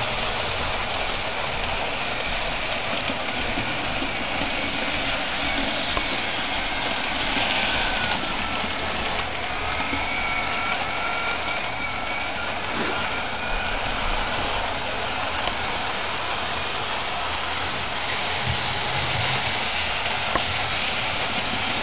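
Hornby Flying Scotsman model locomotive with a tender-mounted motor running steadily around the track: an even electric-motor whir and wheel rumble, with a faint whine that drifts up and down in pitch midway through.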